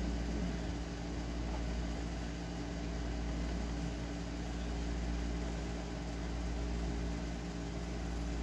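Steady low mechanical hum from a running motor or appliance, holding a few constant tones over a low rumble without change.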